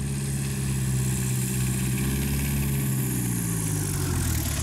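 Cessna 170B light aircraft's piston engine and propeller running steadily as it comes in low to land on a grass strip, the pitch falling near the end.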